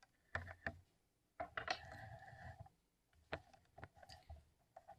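Faint handling noise of a camera being picked up and repositioned: several small clicks and knocks, with a longer rubbing sound about one and a half seconds in.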